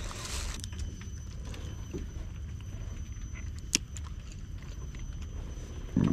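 A plastic bag crinkling briefly as it is tied off, then a single sharp click a little before four seconds in as the cap of a plastic water bottle is twisted open, over a steady low rumble.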